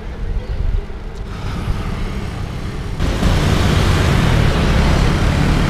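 Wind rumble and road noise on a bicycle rider's action camera, with motorcycle traffic around; the rumble gets louder and hissier about three seconds in.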